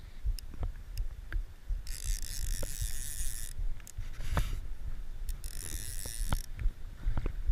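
A fly reel's click-and-pawl drag ratcheting in two runs, one about a second and a half long about two seconds in and a shorter one near six seconds, over scattered low knocks and bumps.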